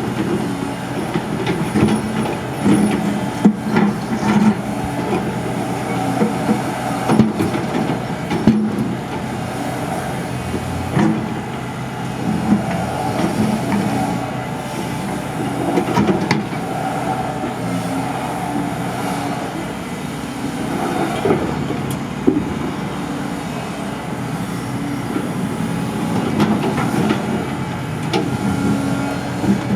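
Excavator's engine and hydraulics running steadily while it breaks up and removes sidewalk concrete, with scattered knocks and scrapes as the bucket works the slabs.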